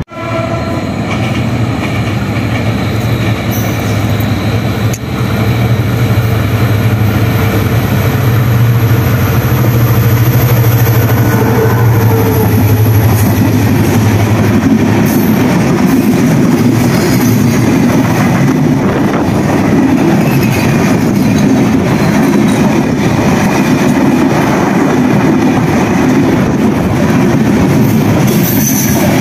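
Diesel-hauled passenger train running through a station at speed: the locomotive's low engine hum as it comes in and passes during the first half, then the steady rumble and clatter of the coaches' wheels on the rails.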